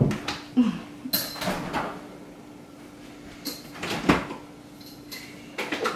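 Kitchen handling sounds: a refrigerator door being opened, with several short knocks and clinks of bottles and glasses, the loudest about four seconds in.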